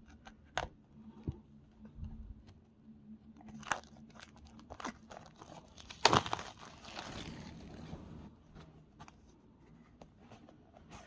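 Earphone packaging being handled and opened: scattered clicks and taps, with a louder stretch of crinkling about six seconds in that lasts a couple of seconds.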